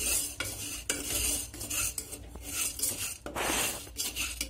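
A wooden spatula scrapes round the bottom of an aluminium pressure cooker in repeated strokes, stirring popcorn kernels through hot oil. There is one longer, louder scrape near the end.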